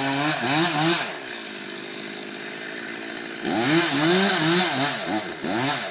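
Chainsaw engine revving in repeated surges, its pitch rising and falling. About a second in it drops to a quieter, steadier run, then surges again at about three and a half seconds.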